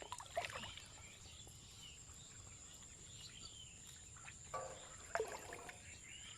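Quiet wetland ambience: a steady high-pitched insect drone with scattered bird chirps and a few small knocks or splashes near the start. Two short pitched calls stand out about four and a half and five seconds in.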